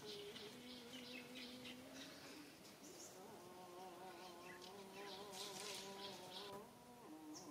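Faint buzzing of a flying insect, its hum held for seconds at a time and changing pitch as it moves, with scattered faint bird chirps.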